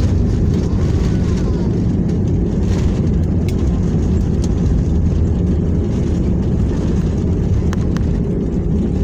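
Steady, loud low rumble inside a VietJet airliner's cabin as it rolls along the runway after landing: engine and wheel noise at an even level, with a few faint clicks near the end.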